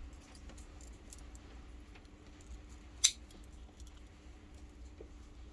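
Small handling noises of a Swiss Army knife and paracord: a few faint clicks and rustles, with one sharp click about three seconds in.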